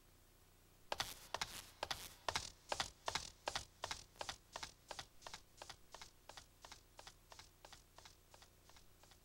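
A run of sharp, even taps, about three a second, starting about a second in and fading away gradually.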